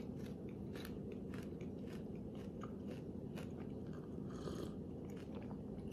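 Quiet close-up chewing of a crispy Rice Krispie square, with small crunches and crackles throughout, and a sip from a mug about four seconds in.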